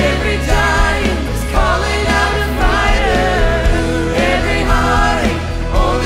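Youth choir and a girl soloist singing a contemporary worship song over instrumental backing with a steady bass line.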